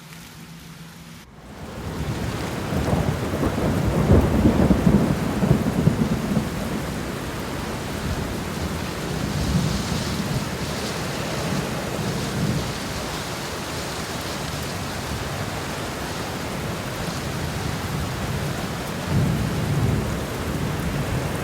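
Rain falling steadily, with rolling thunder rumbling a few seconds in and again near the end.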